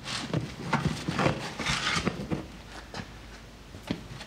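Old racing fuel cell foam crunching and rustling as a gloved hand pulls it out through the cell's opening. It is a series of irregular crackles, dense at first and sparser near the end. The foam is aged, still flexible but a little crunchy.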